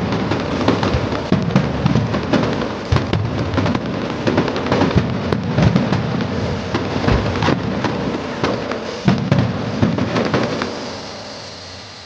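Fireworks display going off: a rapid run of sharp bangs and booms over continuous crackling, dying away about eleven seconds in.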